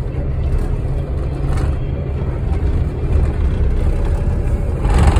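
Steady low engine and road rumble heard inside a truck cab while driving, growing louder near the end as the truck drives into a tunnel.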